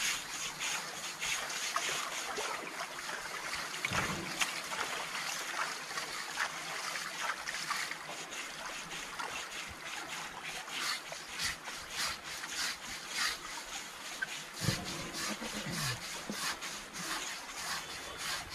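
Water splashing and trickling around an elephant being washed down in a shallow stream, with many short scrubbing and splashing strokes. A deeper low sound comes about four seconds in and again near fifteen seconds.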